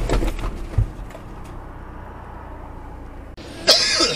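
Steady road and engine noise of a car heard from inside the cabin, with a few knocks in the first second and a sudden, louder burst of noise near the end.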